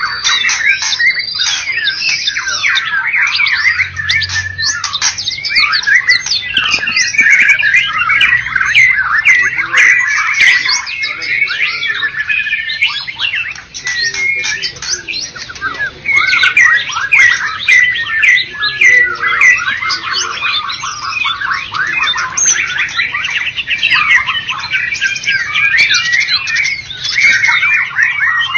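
White-rumped shama (murai batu) singing continuously: a dense, varied stream of rapid notes, whistles and sweeps in pitch.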